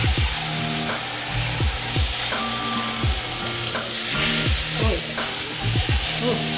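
Chuck roast searing in hot oil in an enamelled cast-iron Dutch oven, a steady sizzle as the meat is turned over with a fork to brown its sides.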